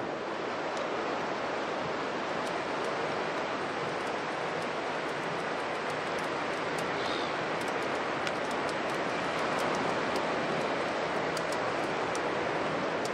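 Steady wash of surf and wind, an even rushing noise with a few faint light clicks.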